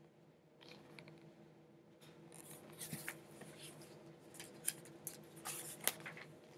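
Quiet rustling with scattered light clicks and ticks from a hardcover picture book being handled, lowered and moved about, busier in the second half, over a faint steady low hum.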